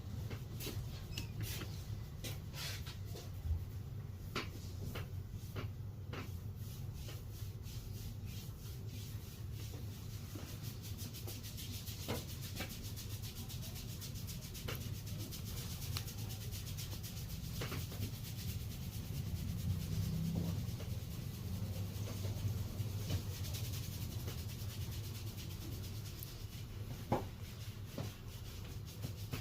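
Hands rubbing and kneading a person's scalp and hair during a head massage: a close, continuous rubbing with many quick taps and clicks, over a steady low rumble.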